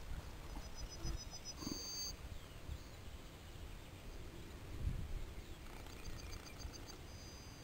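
Wind buffeting the microphone with an uneven low rumble, and a small bird singing twice. Each song is a quick run of about seven short high notes ending in one drawn-out note.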